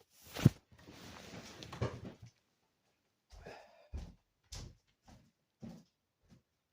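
A sharp thump, then about a second and a half of rustling, followed by a series of short, irregular knocks and taps.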